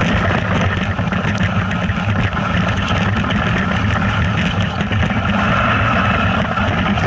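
A vehicle engine running steadily, its low drone under a steady rushing noise.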